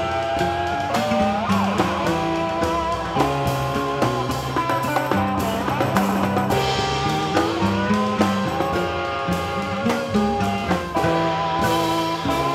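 Live instrumental band of oud, lap steel guitar, bass and drums playing, with long notes that glide in pitch a couple of times over a moving bass line and steady drum hits.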